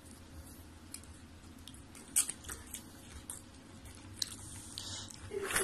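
Siberian husky chewing popcorn: a run of short, crisp crunches starting about two seconds in, with a few more later.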